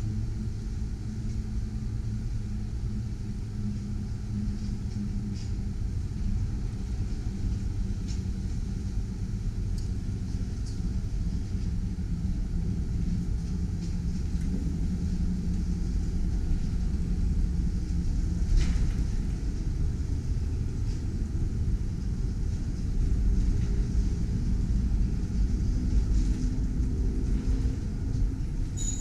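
Streetcar transfer table running across its pit carrying a CLRV streetcar, a steady low rumble with a faint hum that grows a little louder partway through. A few faint clicks and knocks are heard over it.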